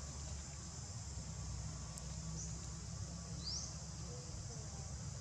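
Outdoor forest ambience: a steady high-pitched drone of insects over a low steady rumble. Two short chirps come in the middle, the second rising in pitch.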